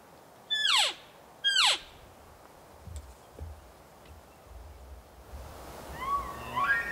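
Two short elk cow calls (mews) about a second apart, each a whistle that slides steeply down in pitch. A couple of soft thuds follow, and music fades in near the end.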